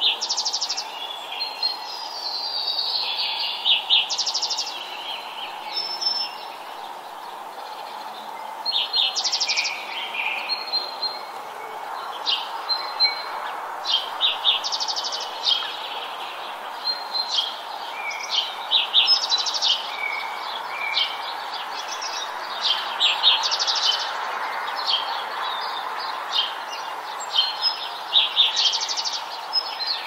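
Small songbirds chirping and calling, with short rapid trills every few seconds, over a steady background hiss.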